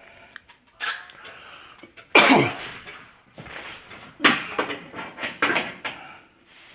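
Metal oven door and its hinges knocking and clanking as they are forced back into the hinge slots, in irregular blows. The loudest comes about two seconds in and there is a quick cluster near the end; the hinge is stiff and may be bent.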